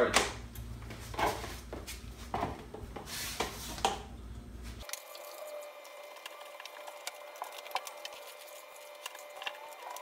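Wet microfiber cloth squishing and water splashing as it is dipped and wrung in a bucket of hot soapy water, in several short bursts. About halfway through the sound changes abruptly to faint rubbing and light clicks over a steady hum as the cloth wipes the inside of the refrigerator.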